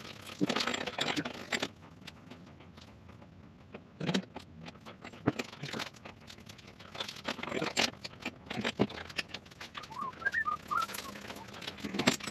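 Handling noise from a boat's folding canvas top and its metal frame: rustling canvas with irregular clicks and knocks. A few short whistle-like notes come about ten seconds in.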